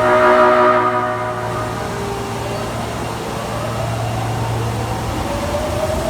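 Osaka Metro 22 series subway train's warning horn sounding once with an abnormal, off tone for about a second and a half, then the train's motor whine rising steadily in pitch as it pulls away.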